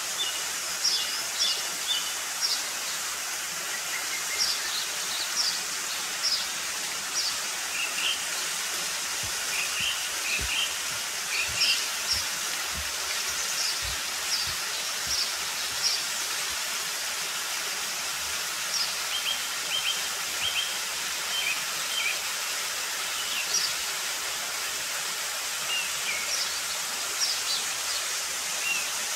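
Steady rush of a small waterfall running over rock, with birds chirping in short, high calls again and again.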